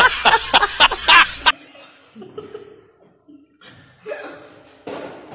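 Loud, rapid laughter sound effect dubbed onto a laughing-monkey meme clip, a quick run of 'ha-ha' cackles that cuts off suddenly about a second and a half in. Then quieter room sound with a few soft chuckles and breaths.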